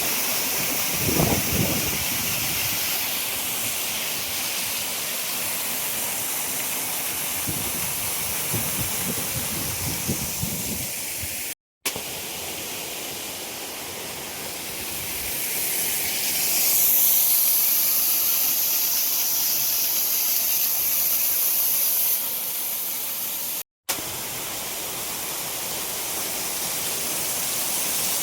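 Steady rushing and hissing of monsoon waterfalls, broken by two brief drops to silence where the shots change; the hiss grows louder and brighter in the middle section.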